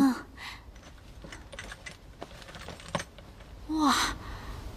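A young woman's short "mm" at the start and an exclaimed "wow" with falling pitch near the end, with a few faint clicks and taps of small objects being handled in between.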